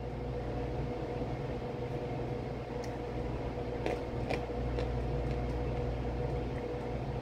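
Steady machine hum with a constant low tone, like a fan or air conditioner running in a small room, with a few faint clicks about three to four seconds in.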